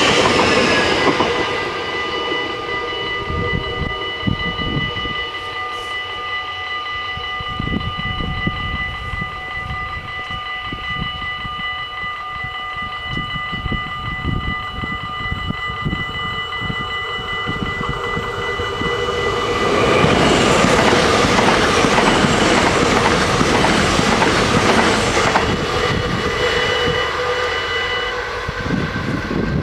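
Level-crossing warning bells ringing steadily as the noise of a passing train dies away in the first couple of seconds. About two-thirds in, a louder rushing noise swells and holds as another train comes up the line.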